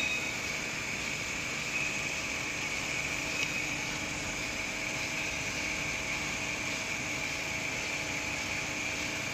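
Napkin folding machine running steadily: a continuous mechanical hum with a high, even whine.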